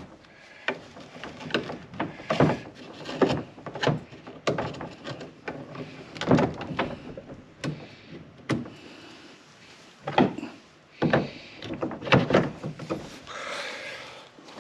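PVC pipes and fittings knocking and clacking as they are pushed together and fitted into a plastic kayak hull, an irregular string of sharp knocks with scraping and rubbing between them.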